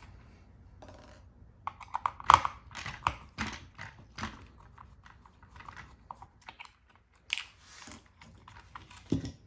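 Quick small clicks and taps of a screwdriver working on a robot floor cleaner's plastic housing as screws are taken out. They come thickest from about two to four seconds in, with the sharpest tap a couple of seconds in, and a few scattered clicks later.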